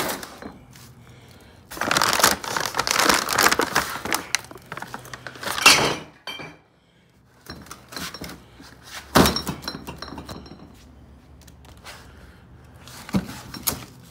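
Paper and plastic trash bags rustling and crumpling as they are handled, in noisy bursts over the first six seconds. Then two sharp knocks of junk being dropped, one near the middle and one near the end.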